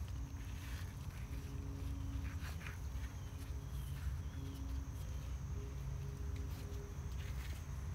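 Gloved hands working in loose potting soil around a transplant, giving soft, irregular rustles and scrapes over a steady low rumble.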